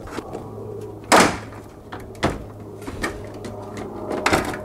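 Plastic knocks and clunks as a Ford F-150 taillight assembly is worked loose from its mounting in the truck bed's side, three sharp ones about a second apart, the first the loudest. A low steady hum runs underneath.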